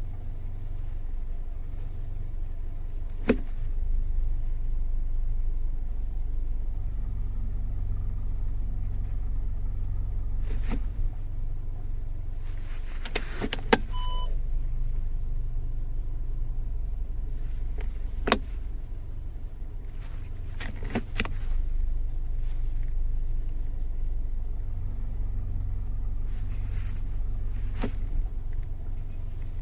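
Air-conditioner refrigerant pipes knocking: sharp single knocks at irregular intervals a few seconds apart, a cluster of them near the middle, over a steady low running hum.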